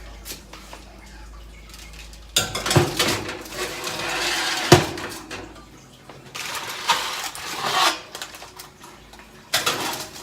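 Metal baking trays being put into an oven, scraping and clattering against the oven racks, with sharp knocks about three seconds in and again near five seconds, the second the loudest.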